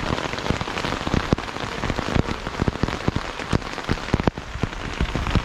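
Rain falling on a tent's fabric, heard from inside the tent: a steady hiss with many sharp individual drop hits on the fabric.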